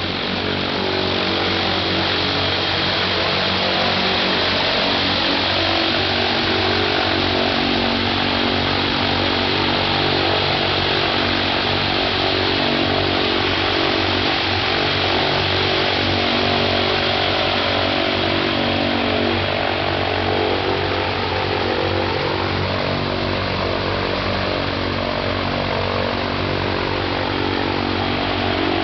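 Ilyushin Il-14T's Shvetsov ASh-82T fourteen-cylinder twin-row radial engine running steadily on the ground, turning its propeller; the level rises slightly about a second in, then holds.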